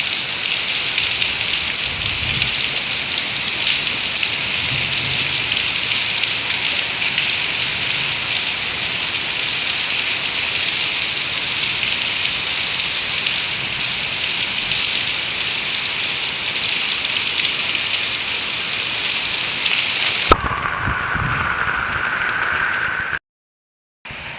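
Heavy rain pouring steadily as a dense hiss. About twenty seconds in, it cuts suddenly to a quieter rain sound with a faint rising tone, then drops out to silence for about a second near the end.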